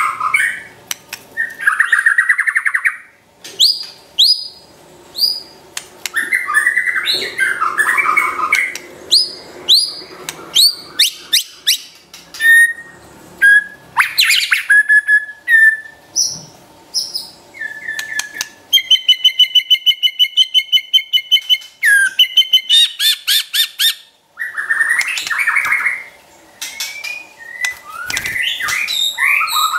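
White-rumped shama singing a fast, varied song of harsh chattering passages, sharp falling notes and clear whistles. In the middle it gives a rapid, even trill of about five notes a second: the 'trotol' rattle of a shama tutor song.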